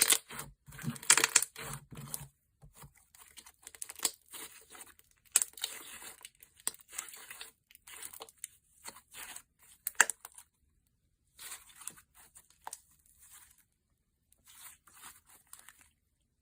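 Thick slime being squished, pressed and pulled by hand, giving irregular crackly, crinkly squelches with short pauses between them.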